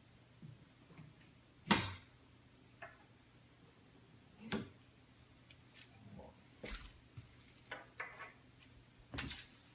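Gas cooktop control knobs being pulled off their shafts and set down on a granite countertop: a scattering of light clicks and knocks, the sharpest about two seconds in.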